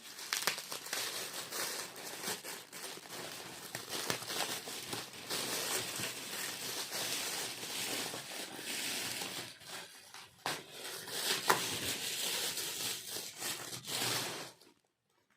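A heavily taped gift's wrapping being torn and crumpled by hand: continuous crinkling and ripping of paper and sticky tape, with one sharp snap about two-thirds of the way through. It stops shortly before the end.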